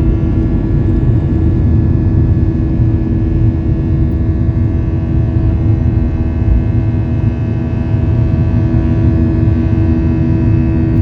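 Jet airliner's engines during takeoff: a steady low rumble with a constant hum over it, unchanging throughout.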